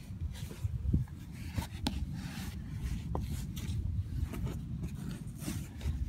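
Wind rumbling on the microphone, with a few small taps and scrapes as a toddler climbs a plastic playground climbing wall.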